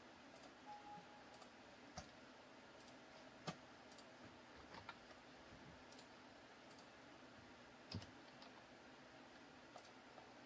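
Faint, scattered computer mouse clicks, a few single clicks a second or more apart with two sharper ones about three and a half and eight seconds in, over a low steady hiss.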